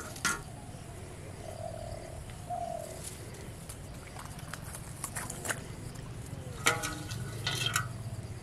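A steady low rumble, two short low animal calls about two seconds in, and scattered clicks and rustles, the loudest about seven seconds in.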